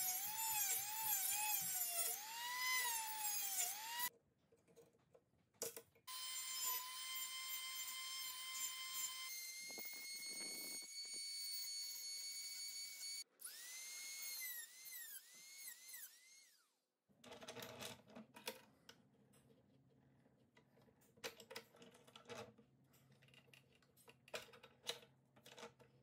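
Small rotary tool with a thin cutoff disc grinding the steel bottle-opener tool of a Swiss Army knife. It gives a high whine that wavers and dips as the disc bites, holds a steady pitch, steps up to a higher pitch, then wavers again as it cuts. It stops about two-thirds of the way in, and scattered light clicks and knocks follow.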